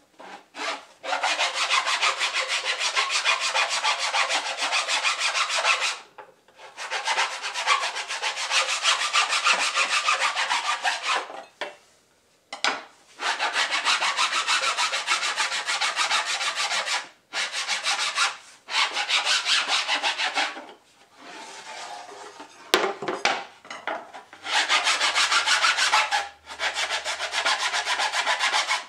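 Hand file rasping along the edge of a recycled synthetic decking board shaped into a snowskate, in several long runs of quick strokes broken by short pauses, with a quieter stretch about three-quarters of the way through.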